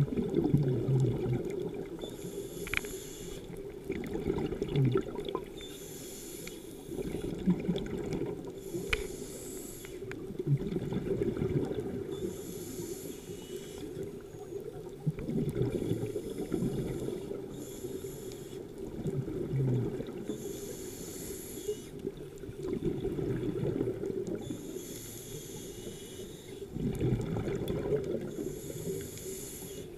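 Scuba diver breathing through a regulator underwater: a hissing inhale every few seconds, alternating with the low burble of exhaled bubbles.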